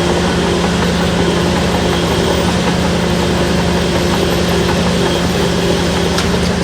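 Shantui DH17-C3 bulldozer's diesel engine running at a steady, loud, even pitch.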